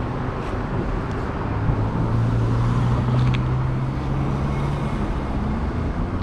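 Road traffic noise: a steady wash of passing vehicles, with one vehicle's low engine hum growing louder about a second and a half in and fading near the end.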